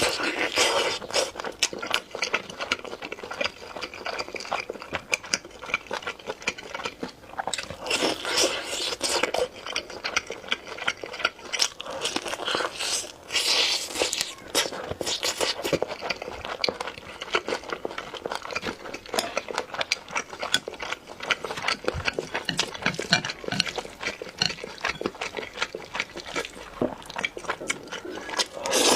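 A person eating, biting, crunching and chewing food in a dense run of crackly clicks, with louder crunchy stretches now and then.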